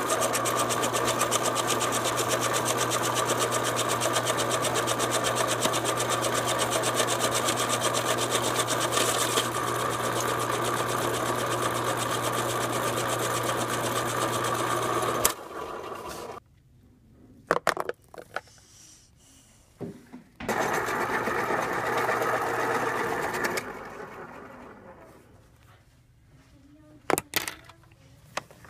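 Electric pencil sharpener's motor running steadily as a pencil is sharpened, cutting off abruptly about fifteen seconds in. After a few clicks it runs again for about three seconds, then dies away.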